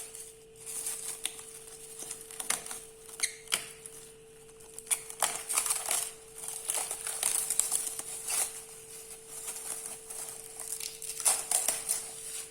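Kitchen handling sounds: irregular clicks, taps and crinkly rustles from a bowl of yeasted pancake batter and utensils being handled. A faint steady hum runs underneath.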